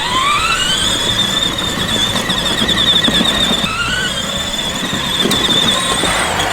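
A loud high-pitched whine that glides up in pitch at the start, then holds steady with a slight warble. It drops briefly about four seconds in, rises again, and stops near the end.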